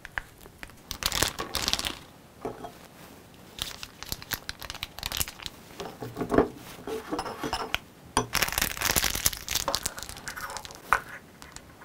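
Plastic piping bag crinkling and rustling as it is filled with stiff whipped coffee from a silicone spatula, with short scrapes of the spatula in a glass bowl. Near the end comes a longer, denser stretch of crinkling as the bag is squeezed and twisted closed.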